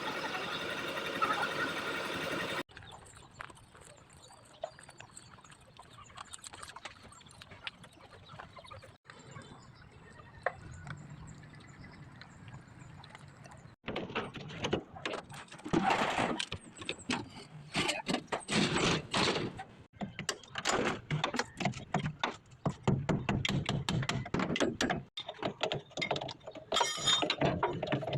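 An engine running for the first two or three seconds, then cuts off abruptly. After that come clicks and knocks of hands-on repair work, sparse at first and busier and louder from about halfway through.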